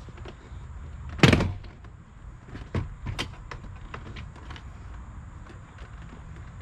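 Truck door panel being worked off the door: one loud, brief scrape about a second in, then a few light knocks and clicks of the panel and its clips.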